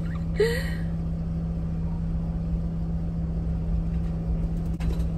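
Car engine idling, a steady low hum with a rumble beneath, heard from inside the cabin. A single click near the end.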